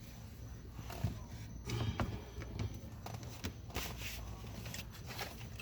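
Light clicks and rustling from plastic car door-handle trim parts being handled, over a steady low hum.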